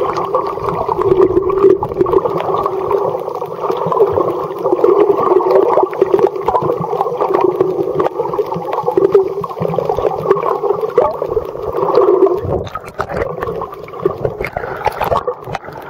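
Muffled underwater noise of water movement and bubbling, a dense steady crackling rush that thins out and becomes patchier about twelve seconds in, as the camera nears the surface.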